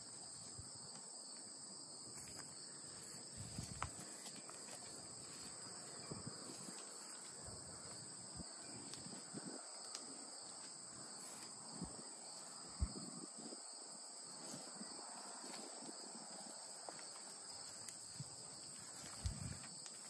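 Steady, faint chorus of insects in a summer pasture, with scattered soft rustles and a few short knocks from the grass nearby.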